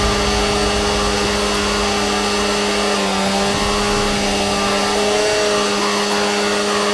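G8000 engine-driven welder running at a steady speed, a constant hum with a hiss over it.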